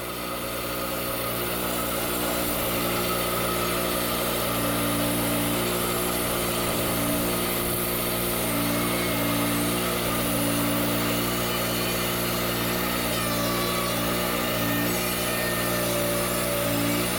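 WoodMizer LT40 Wide band sawmill running steadily, its band blade sawing through a hard pecan log. The sound fades in over the first second or so.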